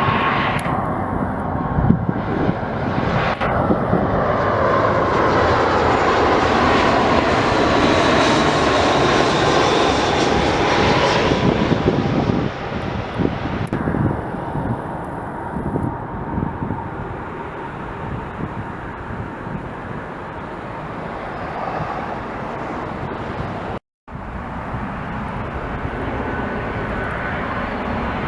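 Jet airliner's engines passing, the noise swelling with a slowly falling whine to a peak about ten seconds in, then easing off. The sound drops out for an instant near the end.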